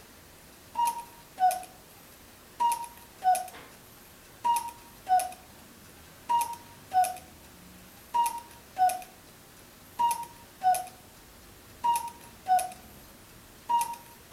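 Wooden cuckoo clock sounding its two-note 'cuck-oo' call eight times in a steady row, a higher note then a lower one, each starting with a click.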